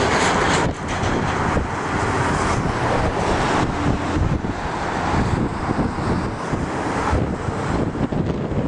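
Steady highway traffic noise from cars and a bus passing, with wind buffeting the microphone in irregular gusts.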